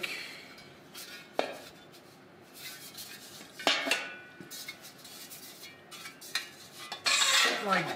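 Domed bronze helmet plates clinking and knocking against each other and on a steel work table as they are handled and set in place: a few separate knocks, one with a short metallic ring, then a louder scraping clatter near the end.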